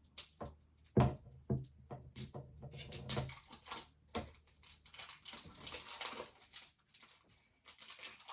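Plastic packaging of a laptop charger being ripped open and crinkled by hand: irregular crackles and snaps, loudest about a second in and again around three seconds, with faint music underneath.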